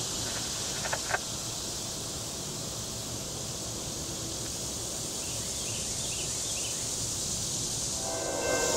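Steady high drone of summer insects in the trees, with a few sharp clicks about a second in. Near the end a railroad grade-crossing bell starts ringing as the crossing activates for an approaching train.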